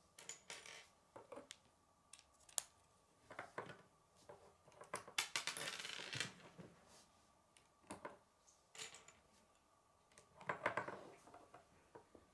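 K'nex plastic rods and connectors clicking and clattering as they are handled and snapped together, with a longer rattle about five to six seconds in as loose pieces are picked from the pile.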